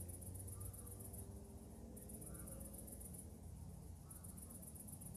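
Faint high-pitched cricket chirping in trains of rapid pulses, each train about a second and a half long with short pauses between, over a low hum that fades after the first second.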